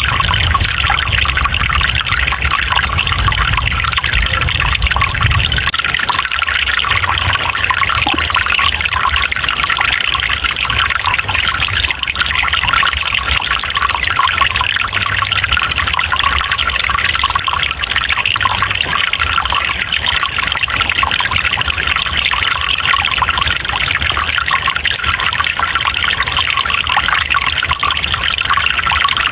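Water trickling and splashing steadily in a small forest stream, with a low rumble underneath for the first six seconds.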